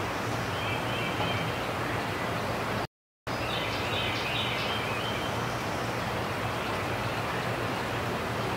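Outdoor ambience: a steady rushing noise with a low hum underneath, and birds chirping now and then. It drops out to silence for a moment about three seconds in.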